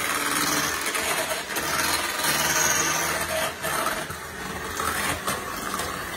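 Electric hand mixer running steadily, its twin beaters whirring through a thick mix of egg yolks and sweetened condensed milk in a glass bowl.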